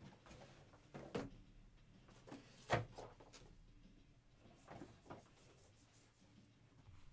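Faint, scattered taps and knocks of trading cards and foil packs being handled and set down on a tabletop, the sharpest knock near the middle.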